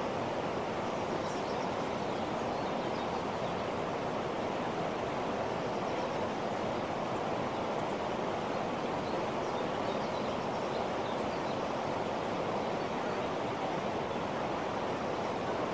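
Steady rushing noise at an even level, with faint short high chirps now and then.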